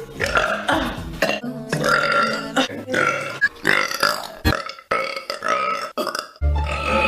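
A woman burping repeatedly, a string of loud, drawn-out burps one after another, each with a wavering pitch.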